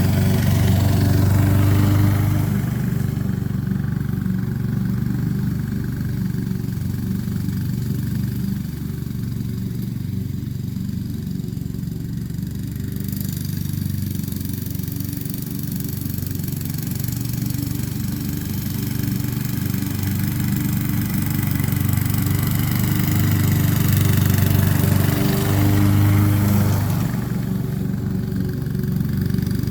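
Honda HRX217 walk-behind lawn mower's single-cylinder engine running steadily. It is louder about two seconds in and again near the end, and quieter in between.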